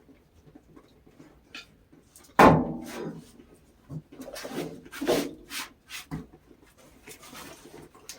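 A series of sudden wooden knocks and clunks, typical of lumber being handled. The loudest is a sharp knock about two and a half seconds in, followed by several smaller ones.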